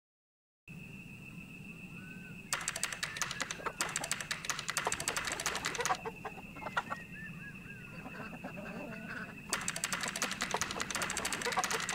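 Chickens chirping and clucking in a virtual-world village, with a steady high tone under them. Two runs of rapid computer-keyboard typing come in, one from about two and a half seconds in and another near the end. It starts after a moment of silence.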